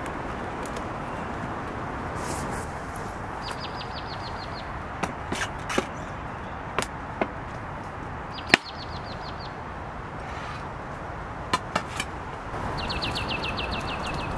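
Steady hiss of rain, with scattered clicks and taps as plastic and glass food containers are handled, and three short rapid high trills of a small bird.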